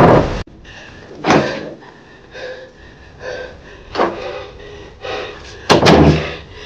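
Background music cuts off suddenly, followed by three loud thumps: one about a second in, one about four seconds in, and a heavier double one near the end. Faint voices can be heard between them.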